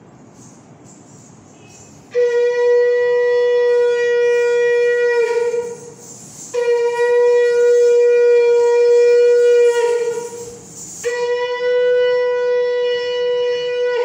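Conch shell (shankh) blown in three long, steady blasts at one pitch, the first starting about two seconds in, each lasting about three seconds with short breaks between.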